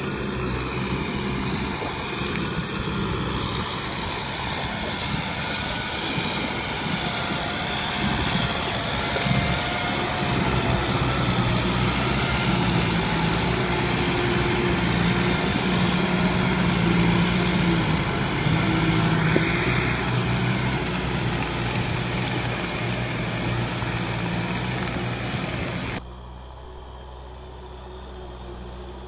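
Kubota farm tractor's diesel engine running steadily under load as it churns through deep mud, its pitch rising and falling a little. Near the end the sound drops suddenly to a fainter engine hum.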